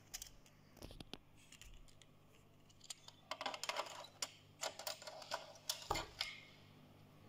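Sony MDS-JE640 MiniDisc deck's auto-loading mechanism drawing a disc in through the front slot: a quick series of clicks and short whirs from the loading motor and sled, ending about six seconds in. The loading now works after the drive belt was replaced.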